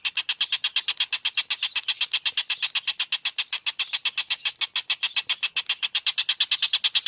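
Tengkek buto kingfisher calling in a fast, unbroken run of sharp, high notes, about ten a second, evenly spaced.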